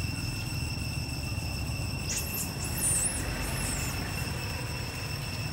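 A few short, high-pitched, wavering animal squeaks about two seconds in, over a steady high whine and low background rumble.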